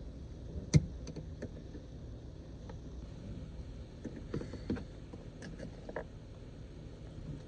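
Scattered clicks and light knocks of hands and tools working on a car's interior trim and relay, with one sharp click about a second in, over a low steady rumble.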